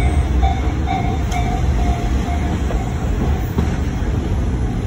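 Running sound of a KiHa 30 diesel railcar heard from inside the car, a steady low rumble of its DMH17H diesel engine and the wheels on the rails. A repeating ringing tone, about three a second, fades away in the first three seconds.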